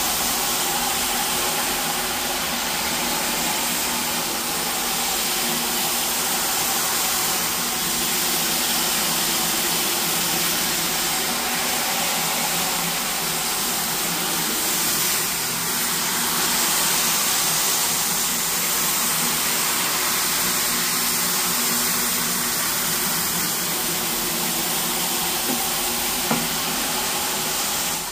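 Rug-cleaning equipment running with a steady, loud hiss of spraying water over a constant machine hum, cutting off suddenly at the end.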